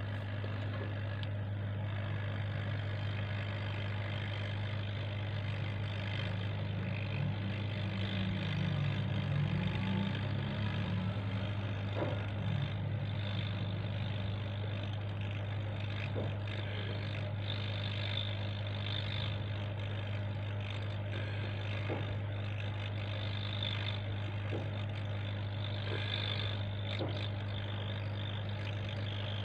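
Hot air rework station blowing steadily, a constant airflow rush over a low hum, with a few faint clicks scattered through it.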